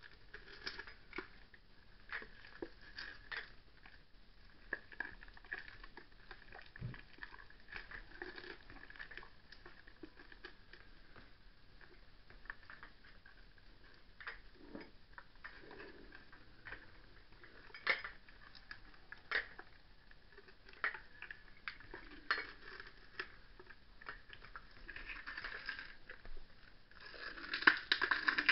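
A small dog's teeth clicking and scraping on a baby carrot held in the fingers as it gnaws and snaps at it, in irregular clicks and small crunches, with a flurry of louder crunching near the end.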